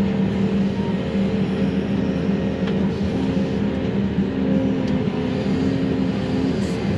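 Excavator's diesel engine and hydraulics running steadily, heard from inside the cab while the grapple works brush. A slightly higher steady hum joins about three seconds in and drops out shortly before the end.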